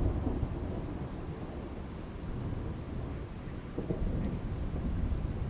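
Rain falling steadily with low rumbling thunder.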